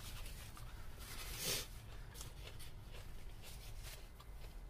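Faint chewing and small mouth clicks from a person eating, with one short breathy noise about a second and a half in, over a low steady hum.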